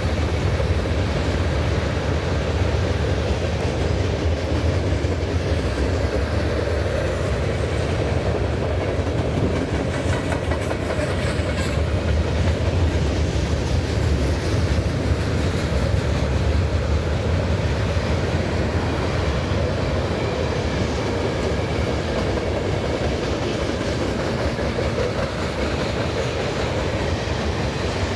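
CN freight train rolling past on the rails, a steady, even rumble.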